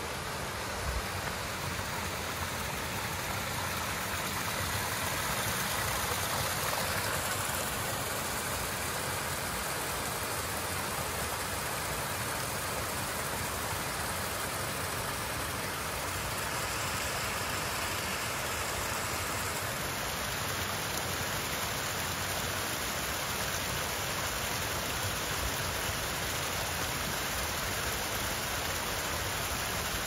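Several thin waterfalls pouring into a shallow rocky pool, a steady, even rush of falling water.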